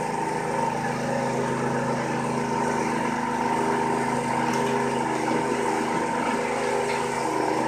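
CNC milling machine running: a steady motor hum with an even higher tone over it.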